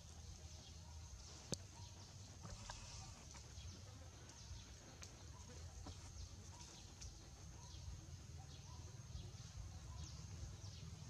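Faint outdoor ambience: scattered soft high chirps over a low steady rumble, with one sharp click about one and a half seconds in.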